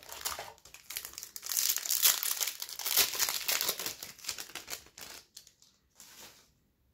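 Foil wrapper of a 2022 Topps Pro Debut baseball card pack being torn open and crinkled, a dense crackling that is loudest in the first few seconds and thins out after about four seconds, with one short rustle near the end.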